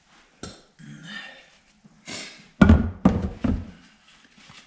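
Heavy cast aluminium rear hub carrier set down on a wooden workbench: one loud thunk about two and a half seconds in, then two or three lighter knocks as it is shifted into place.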